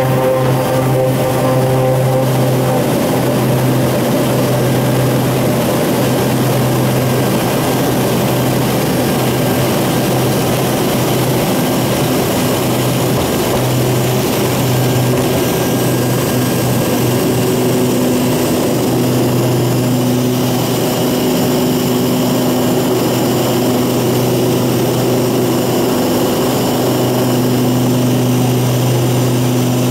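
Antonov An-38-100's twin Honeywell TPE331 turboprop engines at takeoff power, heard from inside the cabin through the takeoff roll and climb-out. The engines make a loud, steady drone with a deep propeller hum under a wide rushing noise, and a second, higher hum joins about halfway through.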